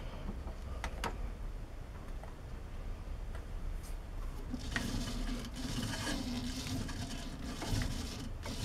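A few light clicks from setting up a dial indicator on a magnetic base, then about halfway through a 100-year-old belt-driven lathe starts up and runs steadily with a hum and a hiss.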